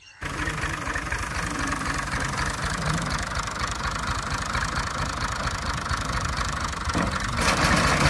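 Tractor's diesel engine running steadily with a fast, even chugging, driving a front-mounted wheat reaper; it grows louder and noisier near the end.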